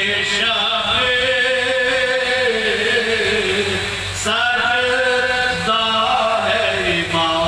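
A man reciting a marsiya, the Urdu elegy for Imam Husain, in a slow chanted melody through a microphone, holding long notes. A new phrase starts about four seconds in.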